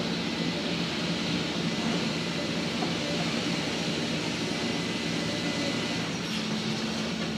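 A heavy engine running steadily, a low, even drone with no change in speed.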